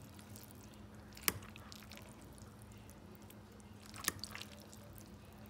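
Quiet eating sounds over a steady low hum: a sharp click about a second in and another about four seconds in, followed by a few small ticks.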